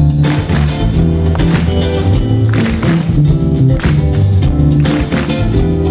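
Live band music: two acoustic guitars and an electric bass guitar playing together, with plucked guitar notes over held bass notes.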